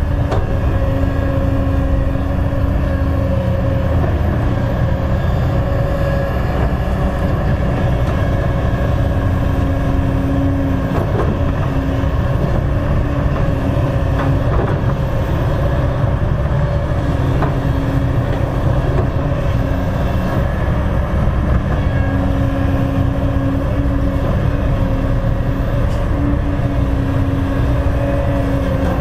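Kobelco crawler excavator's diesel engine running steadily under load as the bucket digs soil, with a constant low rumble and a steady hum that fades and returns.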